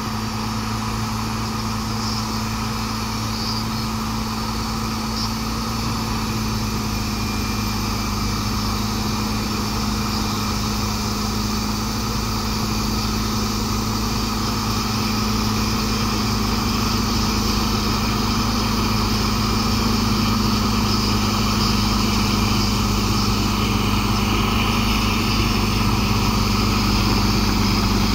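CAT D7R crawler dozer's diesel engine running steadily while the dozer pushes a blade-load of soil, growing gradually louder as it comes closer.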